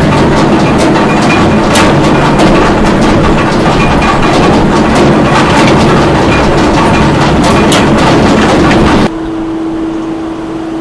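Concrete mixing plant machinery running: a loud, dense clatter with scattered sharp clicks over a steady hum. About nine seconds in the clatter stops abruptly, leaving a quieter steady motor hum.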